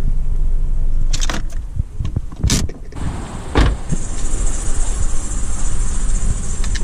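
A car door opened and shut, two sharp knocks about a second apart, over a steady low rumble.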